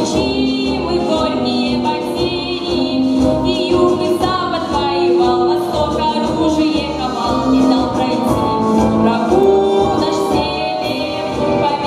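A teenage girl singing a patriotic pop song into a handheld microphone, her long held notes wavering in pitch, over instrumental backing music with a steady beat.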